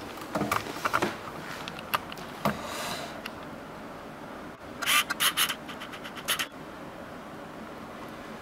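Scratching and scraping noises with scattered clicks, and a cluster of rapid, louder scrapes about five seconds in.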